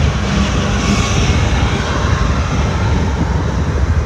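Steady, loud rumble of a car driving at speed, with road and wind noise filling the cabin.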